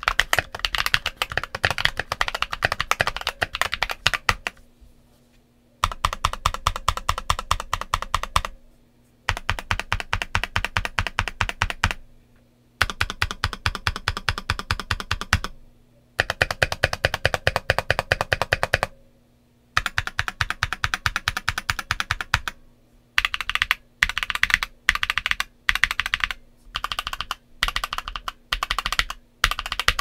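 Modded Redragon K617 Fizz 60% mechanical keyboard with stock Ajazz Douyu switches and Cherry-profile Nautilus ABS keycaps, typed on in fast runs of a few seconds with short pauses between. From about two-thirds of the way through, the keys are struck in short separate clusters, a little more than one a second.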